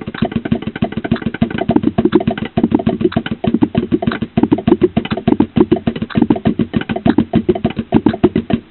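Fast, even drum roll played as hand-foot substitution, sticks on practice pads alternating with the bass-drum pedal in rapid steady strokes. It stops abruptly near the end.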